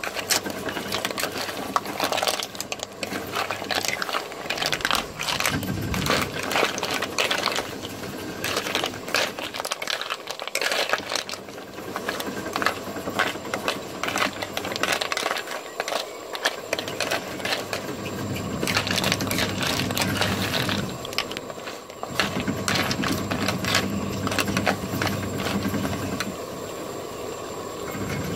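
Snail shells clicking and rattling against a metal wok as they are stirred with a wooden spatula while frying in a spice paste, with sizzling. A steady low hum runs underneath. The stirring eases off near the end.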